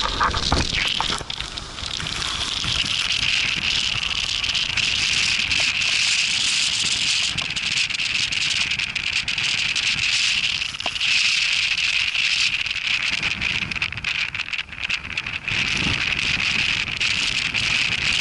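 Heavy wind and rain making a steady loud hiss, with low buffeting rumbles of wind on the microphone in the first couple of seconds.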